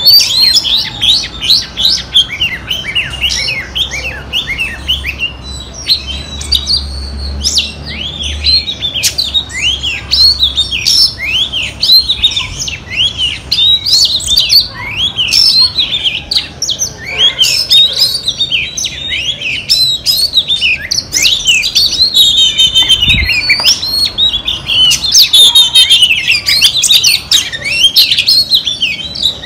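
A female Oriental magpie-robin singing a continuous run of quick, varied chirps and whistles. It is the kind of hen song that keepers use to rouse a male into singing.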